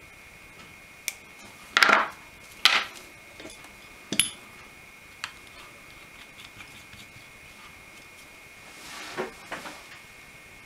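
Small metal hand tools clicking and clattering on a workbench: a handful of sharp knocks in the first half, one with a short metallic ring, then a soft rustle near the end. A faint steady high whine runs underneath.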